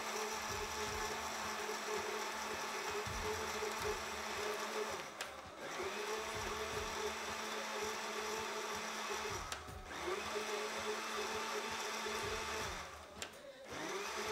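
Electric countertop blender running, churning ice cream and milk into a thick drink. The motor stops briefly three times, about five, nine and a half and thirteen seconds in, and spins back up each time.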